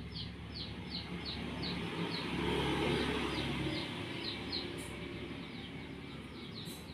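A bird chirping over and over in short, falling high chirps, about three a second. Beneath it a low rumble, like a passing vehicle, swells about two seconds in and fades again.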